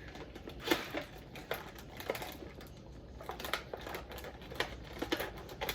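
Irregular clicks, taps and crinkles of plastic food packaging being handled: a Lunchables pizza kit's tray and wrappers.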